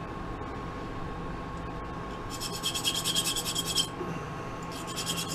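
A tool scraping a brass hex nut on the mini lathe to clear swarf from it. Two rough, rasping scrapes, one from about two and a half to four seconds in and a shorter one near the end, over a steady hum.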